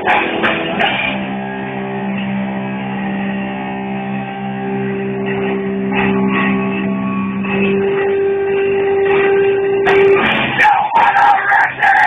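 Live rock band heard through a phone's microphone, dull with the top end cut off. Long held notes ring out over the band for most of the stretch, then the drums and full band come back in near the end.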